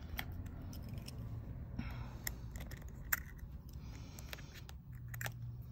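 Light, scattered clicks and faint scraping of a small repair tool working at the connectors inside an iPhone 12 Pro Max, over a steady low hum.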